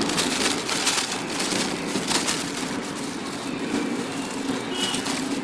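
Plastic packaging bag crinkling and rustling continuously as hands pull at it and handle it.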